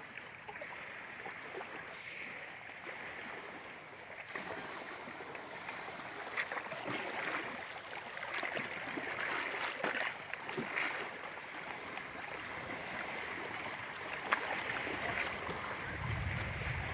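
Lake waves washing against the shore, a steady rushing hiss of water with small splashes, as the waves grow stronger. A low rumble comes in near the end.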